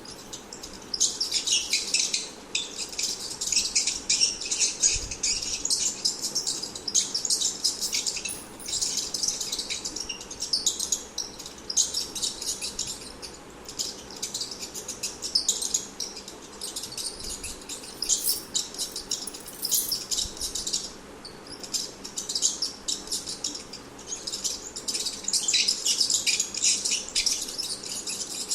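Rats squeaking: runs of rapid, high-pitched squeaks and chirps, each run lasting a few seconds, with short pauses between them.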